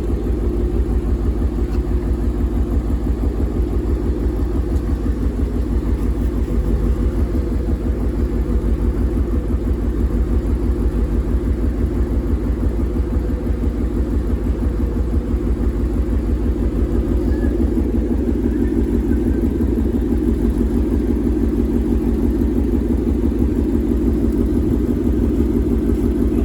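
V8 car engine running steadily through a loud exhaust, with a rapid, even train of low pulses. The engine is being checked by ear for a cylinder 8 misfire (code P0308) that new coil packs and spark plugs have not cured.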